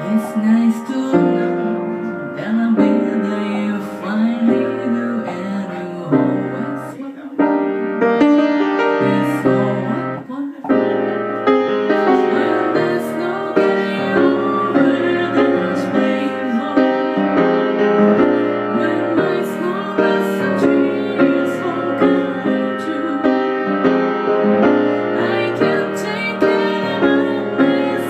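Piano music: a slow passage of sustained chords and melody.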